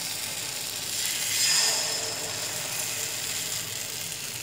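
Rice-flour batter sizzling as it is poured into the hot, oiled hollows of a chitoi pitha mould, a steady hiss that swells about a second and a half in.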